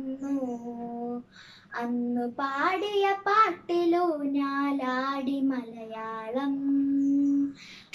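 A young girl singing a Malayalam poem unaccompanied, in drawn-out held notes, with a brief pause for breath about a second and a half in and a long sustained note near the end.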